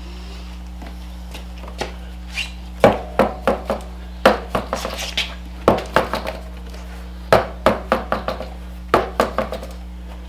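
Clusters of sharp knocks and clacks, several quick strikes in each group, over a steady low hum.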